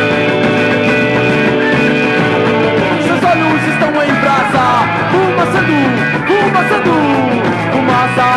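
Music: held chord tones, then from about three seconds in many sliding, bending notes over a steady low line.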